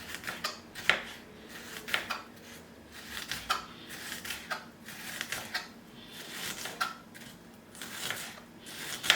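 Kitchen knife slicing red onion thinly: a run of crisp cuts, each ending in a sharp tap of the blade on the chopping board, at an uneven pace of about one or two a second.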